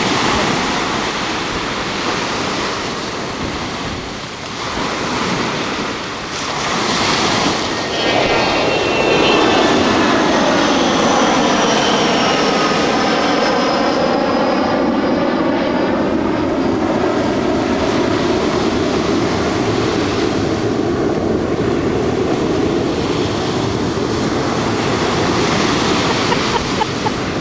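Surf breaking and washing ashore. From about eight seconds in, an airplane passing overhead adds a steady engine drone that slowly slides down in pitch.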